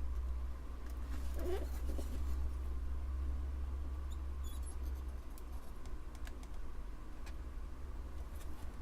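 Low hum of a desoldering tool's vacuum pump running, which drops away about five and a half seconds in, with small scratching and clicks of the tip working at a solder joint on the circuit board.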